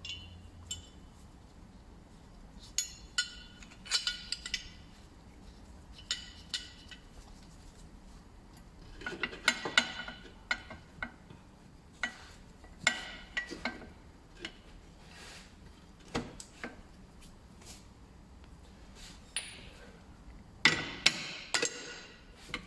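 Irregular metallic clinks and knocks of hand tools and metal parts as a solid gearbox mount is worked into position and its bolts started, with a few bunches of quick taps and a loud cluster near the end.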